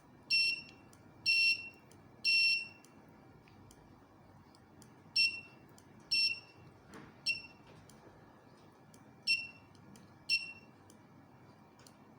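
Small electronic buzzer on a PIC16F876A alarm clock board giving about nine short, high single-pitch beeps in uneven groups. Each beep marks a push-switch press while the alarm hour is being stepped up. Faint switch clicks come between them.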